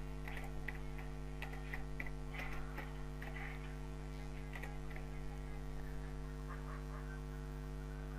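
Computer keyboard keys clicking as a word is typed: a quick, uneven run of light keystrokes for about the first five seconds, then a few fainter clicks. A steady mains hum runs underneath.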